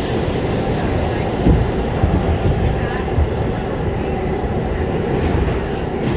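Interior of an R211A subway car running at speed between stations: a loud, steady rumble of wheels on rail, with a few sharp thumps from the track and a brief faint wheel squeal.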